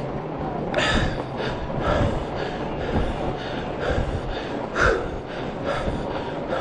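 Heavy, rhythmic panting of a cyclist working hard on a fat-tire bike, about two breaths a second, over a steady low rumble of the wide tyres rolling on a snowy trail.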